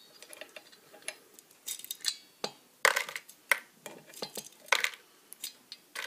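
Irregular light metallic clicks and clinks from handling a multi-pin connector in vise grips over a cast-iron arbor press base plate, as the wired pins knocked loose from it are pulled out.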